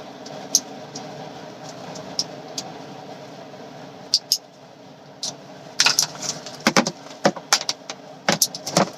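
Plastic strap buckles of a baby car-seat mirror clicking and rattling as the straps are unclipped and handled, a few scattered clicks at first, then a busy run of clicks over the last three seconds. A steady low hum runs underneath.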